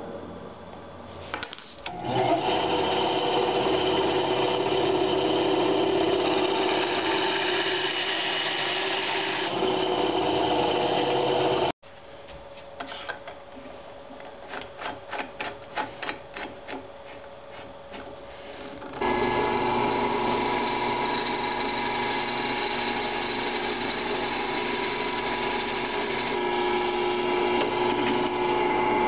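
Drill press running as it drills a wooden pen blank clamped in a pen-blank drilling vise, a steady run that stops abruptly near the middle. Then a string of light clicks and knocks as the vise is worked by hand, and the drill press runs steadily again in the last third.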